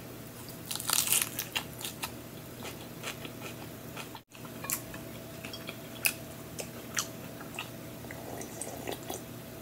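Crisp romaine lettuce leaf wrapped around chicken salad being bitten and chewed close to the microphone: a cluster of sharp crunches about a second in, then sparser crunches through the chewing.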